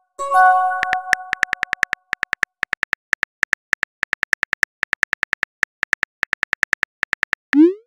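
Phone texting sound effects: a bell-like message-received chime just after the start, then a long run of rapid keyboard tap clicks as a message is typed, and a short rising swoosh near the end.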